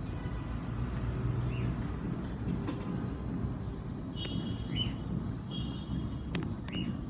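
A steady low rumble with a few short, high bird chirps and two longer trilled calls over it, and two sharp clicks near the end.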